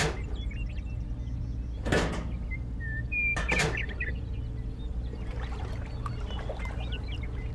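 Three light knocks, at the start, about two seconds in and about three and a half seconds in, as small miniature model parts are set down and handled, with birds chirping in the background.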